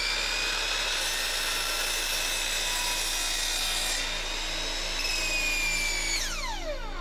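Compound miter saw running at full speed, its motor whining steadily as the blade is lowered slowly through a wooden board. About six seconds in the trigger is released and the pitch drops quickly as the saw's electric brake stops the blade.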